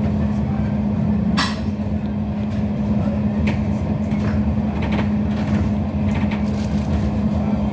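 Inside a passenger train on the move: a steady rumble and running noise with a constant low hum, and one sharp click about a second and a half in.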